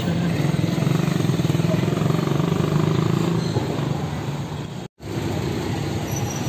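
A motor vehicle engine running close by, a steady low hum that fades after about four seconds, then street traffic noise. The sound cuts out for an instant near the five-second mark.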